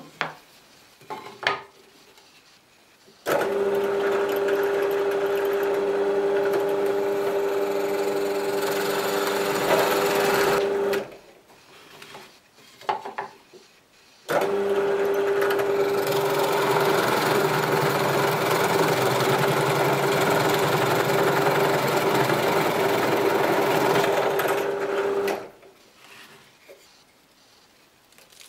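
Benchtop drill press running with a spade bit boring into a wooden block: a steady motor hum with the hiss of cutting wood, in two runs of about eight and eleven seconds that start and stop abruptly. A few short knocks of wood being handled come before and between the runs.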